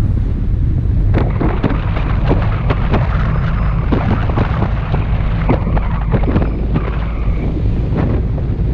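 Heavy wind rumble on a microphone mounted on the front of a slowly moving car. From about a second in it is dotted with many sharp crackles and ticks.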